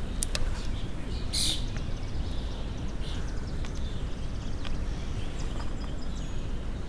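Small birds chirping a few times, with one brighter call about a second and a half in, over a steady low outdoor rumble.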